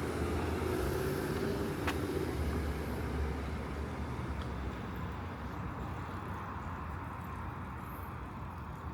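City street traffic: a vehicle's engine rumbling close by, with a low hum over the first couple of seconds, then slowly fading away.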